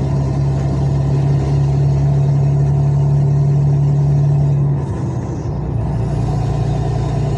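Truck engine running steadily under way, heard from inside the cab. About five seconds in, the engine note drops and wavers, then settles again.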